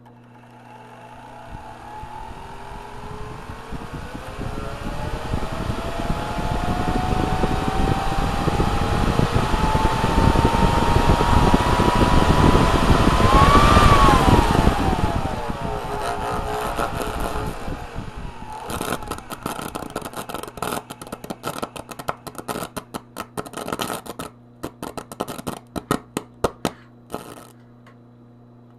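Hoover vacuum cleaner motor spinning up with a whine that climbs steadily in pitch for about thirteen seconds, then winds down with falling pitch as it is run to failure. It is followed by several seconds of irregular crackling and sharp snapping.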